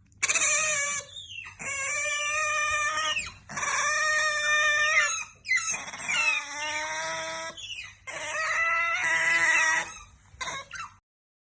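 Otter calling: a series of about five long, high-pitched squealing calls, each lasting a second or two, followed by two short ones near the end.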